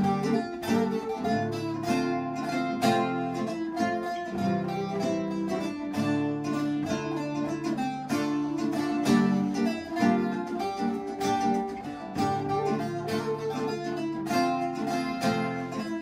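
Bağlama, acoustic guitar and flute playing an instrumental passage of a Turkish folk tune (türkü), with quick plucked string notes throughout.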